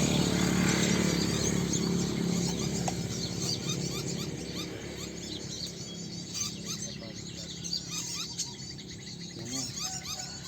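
Many small birds chirping and twittering in rapid short calls, thickening after the first few seconds. A low hum fades out over the first two seconds.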